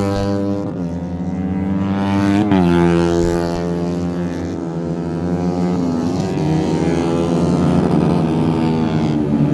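A motor running steadily with a strong pitched hum. Its pitch rises sharply and drops back about two and a half seconds in, then settles slightly lower.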